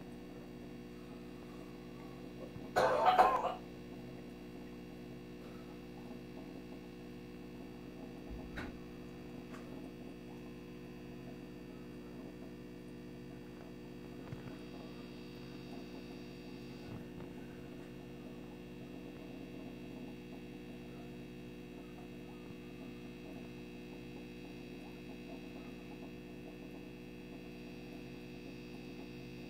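Steady low electrical hum, with one short, loud, noisy sound about three seconds in and a faint click a few seconds later.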